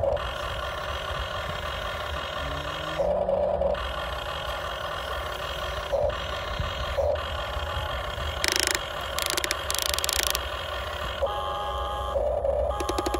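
Electric motors of a Huina radio-controlled toy excavator whining steadily as the boom, arm and bucket move, with several short louder surges as the motors work harder. A little past halfway, the bucket scrapes gritty sand for a couple of seconds.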